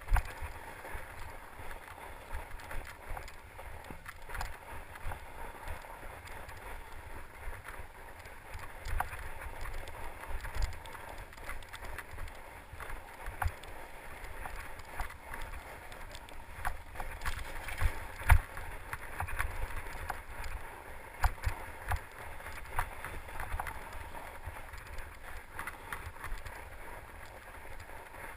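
Fat-tyre mountain bike being ridden over snowy singletrack: steady tyre noise on snow with frequent knocks and rattles from the bike over bumps, the loudest about eighteen seconds in.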